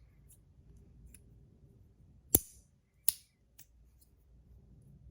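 Beatrix magnetic fidget slider snapping from side to side: two sharp clicks about three-quarters of a second apart, the first the loudest, with a few faint ticks around them. The snap comes from its very strong magnets.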